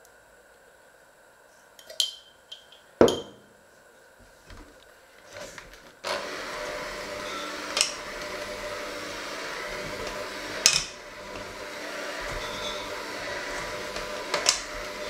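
A few light clicks and a sharp knock, then about six seconds in an electric hand mixer switches on and runs steadily in a stainless steel bowl of flour mixture, its beaters clanking against the bowl a few times.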